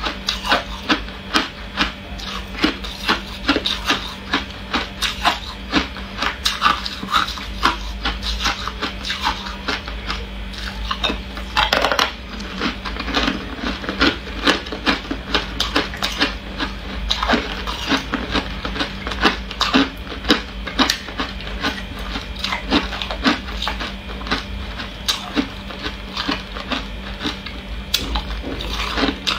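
Ice being chewed: a dense, irregular run of sharp crunching cracks and crackles, several a second.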